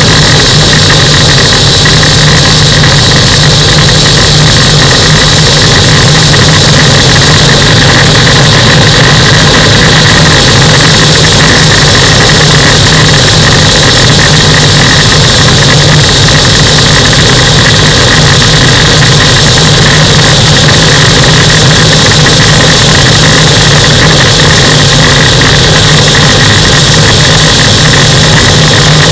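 Microlight aircraft engine and propeller running loud and steady at constant power, with a high, steady whine over the low drone.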